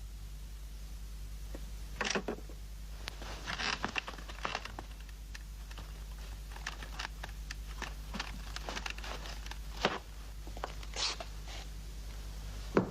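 Scattered small clicks, scrapes and rustles of a telephone's parts being handled and tinkered with, over a steady low hum.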